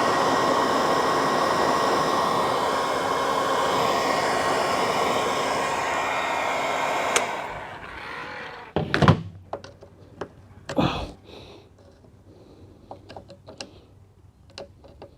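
A hand-held electric blower runs steadily, blowing water out of a radiator core to dry it, and is switched off with a click about seven seconds in. A few knocks and clunks from handling follow.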